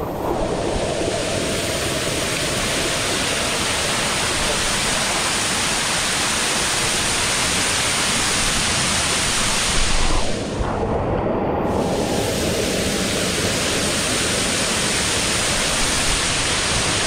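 Waterfall rushing and splashing over rock close to the microphone: a loud, steady roar of water. About ten seconds in the hiss briefly dulls, then comes back.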